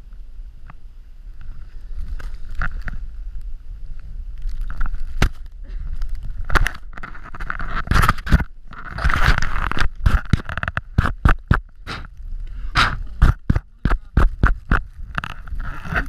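Wind buffeting the microphone, with a rapid run of crunches and knocks as a dog wearing the camera on its back bounds through deep snow; the knocks come thick and fast from about six seconds in.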